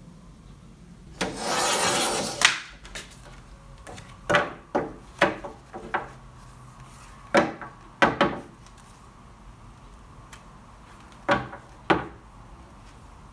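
Paper trimmer's cutting head run along its rail in one stroke through card, lasting just over a second and ending in a sharp click. After it, a small stack of cut card is tapped on its edge against the trimmer's bed about nine times in short clusters, squaring it up.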